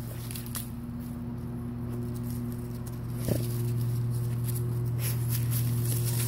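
Carolina Dogs digging: paws scratching and scraping at loose soil in short, irregular strokes, over a steady low hum.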